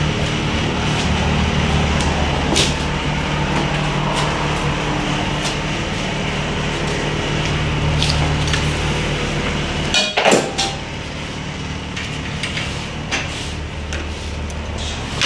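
Semi truck's diesel engine idling with a steady low hum, with scattered clicks and knocks of things being handled in the cab and a louder clatter about ten seconds in.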